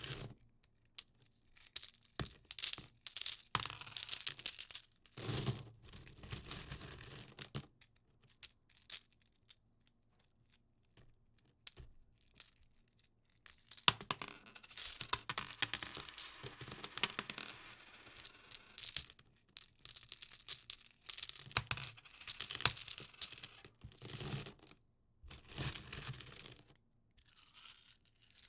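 Metal coins clinking and jingling together in repeated handled bursts, with quiet gaps in between and busier, longer jingles in the second half.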